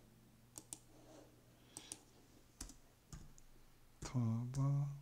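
Scattered clicks of a computer keyboard and mouse, some in quick pairs, then about four seconds in a short two-part murmur from a man's voice, the loudest sound here.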